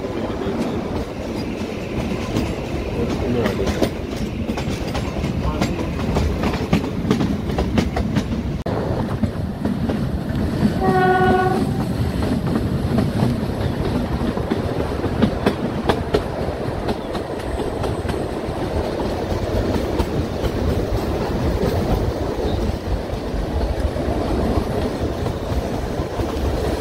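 Kalka–Shimla narrow-gauge toy train running, with steady rolling noise and the clack of wheels over rail joints. About eleven seconds in, the train's horn gives one short blast.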